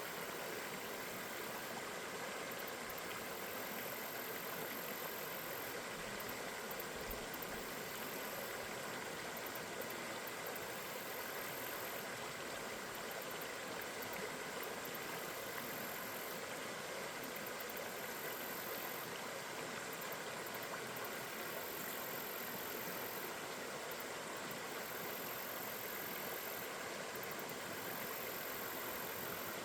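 Steady rushing of a river's flowing water, an even unbroken noise.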